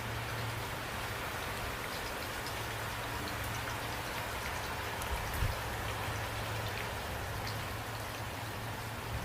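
Steady rain falling, with individual drops ticking through an even hiss and a steady low rumble underneath. There is a single soft low thump about five seconds in.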